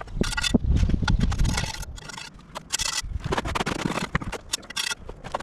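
Irregular scraping and knocking of a hand tool working wet concrete into the hollow cores of concrete blocks to fill them solid.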